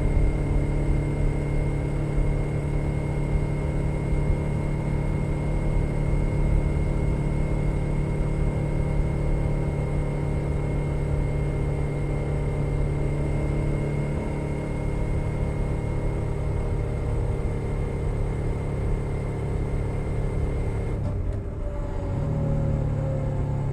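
2021 Suzuki SV 650's V-twin engine through a Leo Vince Nero exhaust, running at a steady cruise on the road, heard from under the seat. About 21 seconds in, the engine note drops away briefly and then picks up again.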